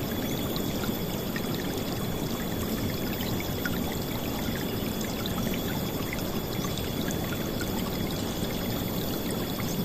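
River water flowing and splashing in a steady, unbroken rush, with a faint steady high tone above it.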